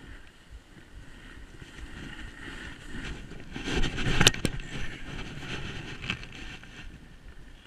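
Snowboard sliding over packed snow with wind rushing on the microphone. The scraping noise swells about four seconds in, with two sharp clicks, then settles back to a steady hiss.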